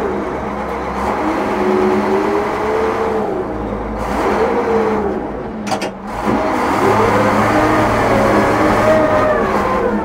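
International Harvester TD20E bulldozer's 13-litre DVT800 V8 diesel working under load, its pitch rising and falling repeatedly as it pushes over a tree. There is a sharp crack about six seconds in.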